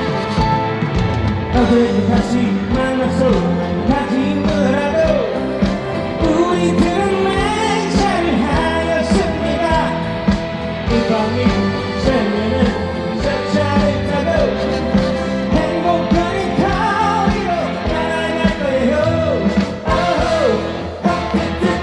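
Male trot singer singing live with vibrato over amplified backing music with a steady beat.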